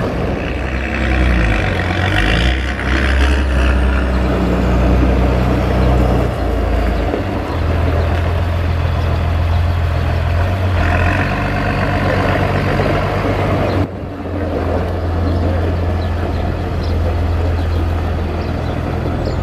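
Massey Ferguson 6499 tractor's diesel engine running with a steady low note as the tractor drives slowly, with a hiss rising over it twice.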